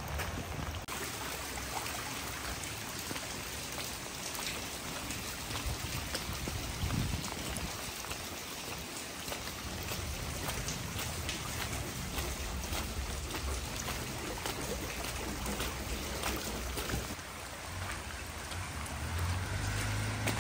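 Storm runoff water rushing and trickling down a mud-covered street, with rain pattering. A low rumble comes in near the end.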